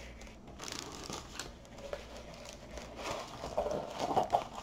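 Clear plastic packaging crinkling as it is handled, in irregular rustles that grow busier about three seconds in.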